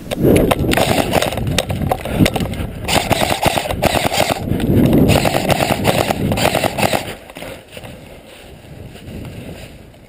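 Airsoft gun firing in rapid full-auto bursts, a fast mechanical clatter that stops about seven seconds in.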